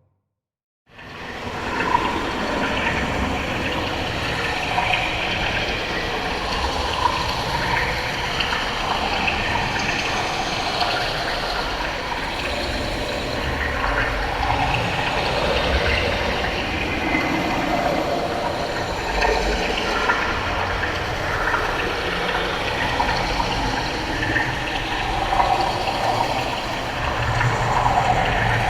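Water rushing and bubbling without a break, starting about a second in after a moment of silence.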